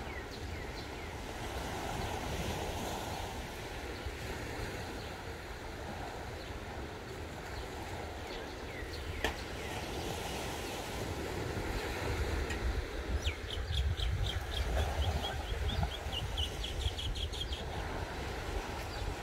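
Wind buffeting the microphone in gusts over the wash of gentle surf on a rocky shoreline, with a small bird giving a quick series of high chirps about two-thirds of the way in.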